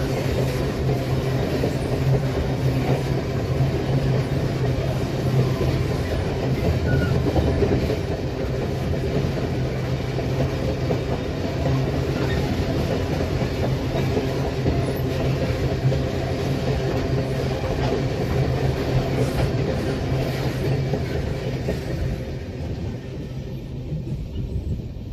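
Empty GDU iron-ore hopper wagons of a long freight train rolling past on the rails, a steady wheel-on-rail rumble that fades near the end as the last wagons go by.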